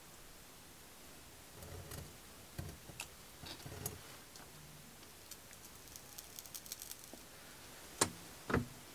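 Workbench handling noises: scattered soft knocks and light clicks as tools and a small pouring pot are moved about. There is a quick run of ticks about six seconds in and two sharper knocks near the end.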